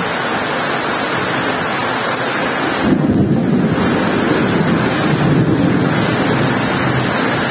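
Heavy rain pouring down, a steady hiss. About three seconds in, a louder, uneven low rumble of wind on the microphone joins it.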